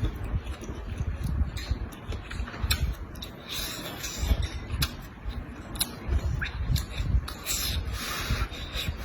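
Close-miked eating in a mukbang: wet chewing and mouth sounds with irregular sharp clicks and short hissy bursts.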